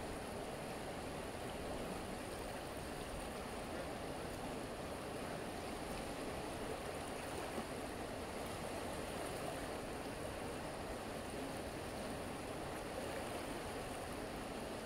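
Steady rush of the fast-flowing Meuse river swirling past the bridge's stone piers, an even, unbroken water noise.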